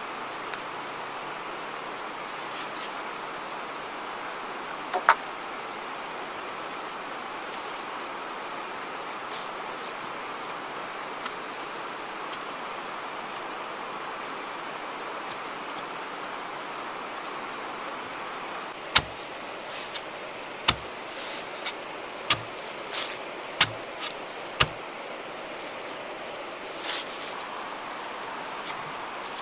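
Steady high-pitched drone of insects. About two-thirds of the way in comes a run of about eight sharp knocks over some six seconds, bamboo poles knocking as they are handled and set up into a frame.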